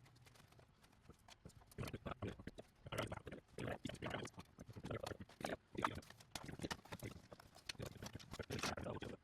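Hand tools working on metal: clusters of quick, irregular clicks and knocks.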